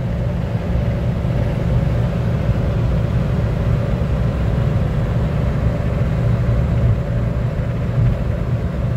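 Steady cabin drone of a Suzuki Wagon R car at about 160 km/h on the motorway: engine, tyre and road noise heard from inside, with a faint steady hum over the low rumble.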